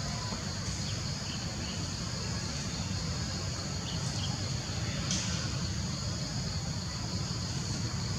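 Insects droning steadily in a high band over a low, steady rumble, with a few faint short chirps.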